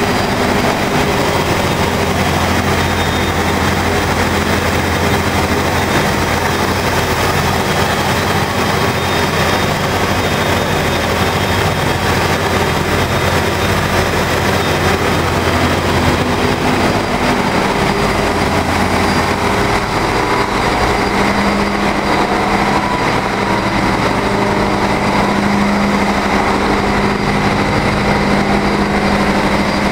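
Ship's engine-room machinery running: a loud, steady mechanical din of diesel engines, pumps and electric motors, with a low hum under it. About two-thirds of the way through the lowest hum fades and a slightly higher hum takes over.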